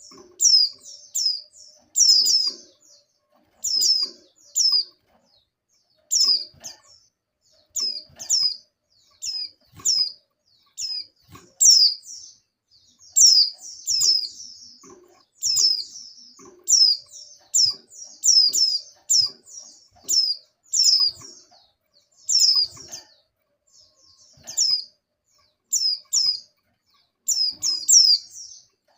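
Female white-eye (pleci) calling: short, high, falling chirps, singly and in quick runs of two to four, repeated about every second. These are the calls of a female in breeding condition calling for a male.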